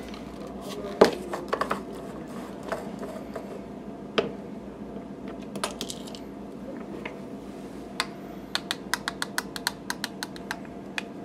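Light clicks and taps of a portable hand coffee grinder being taken apart and its glass grounds jar handled, then a quick run of taps near the end as ground espresso is knocked out of the jar into a measuring cup.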